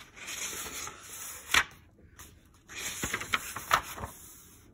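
Paper pages of a hardcover picture book being turned and smoothed flat by hand: rustling in two stretches, with a sharp flap of the page about one and a half seconds in.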